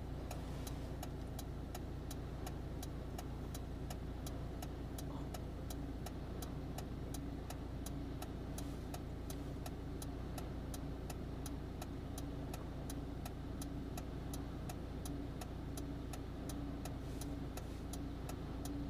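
A car engine idling with a low, steady hum, and a faint regular ticking about two to three times a second.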